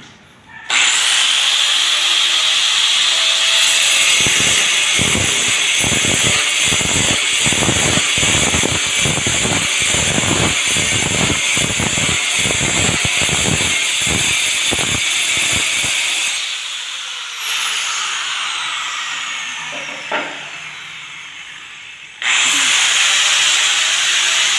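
Angle grinder with a diamond blade cutting a quartz countertop slab: a steady high whine that turns rough and grinding while the blade is in the cut. About two-thirds of the way through it is switched off and winds down with a falling whine, then starts up again near the end.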